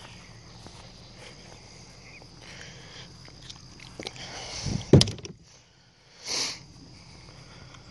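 Handling rustle with one loud, sharp thump about five seconds in, followed a second later by a short hiss-like rush.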